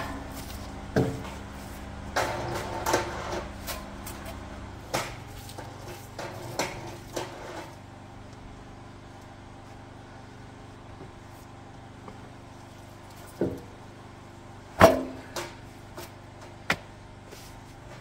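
Folding sawhorses with metal legs being opened and set down, then a wooden pallet dropped onto them: scattered knocks and clatters, the loudest about fifteen seconds in, over a steady low hum.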